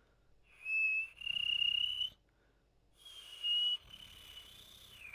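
A person's mouth whistle, demonstrating the move from a plain inward whistle into the uvula ('hummingbird') whistle, with the uvula adding a flutter to the tone. The high whistled tone comes in two stretches, the first briefly broken near its start and the second dipping down in pitch at the end.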